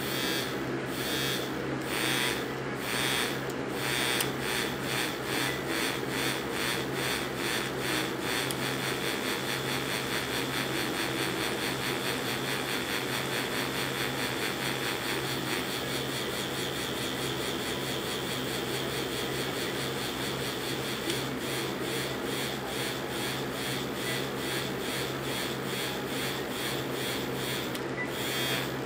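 Two silver bullet vibrators on one remote control, buzzing in pulsing modes. The pulses come slowly at first, about once a second, then faster, evening out to a near-steady buzz in the middle and quickening again near the end as the mode changes several times.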